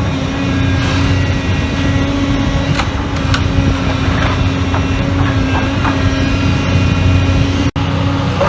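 Heavy demolition machinery's engine running steadily, with scattered knocks and crunches of debris. The sound breaks off for an instant near the end.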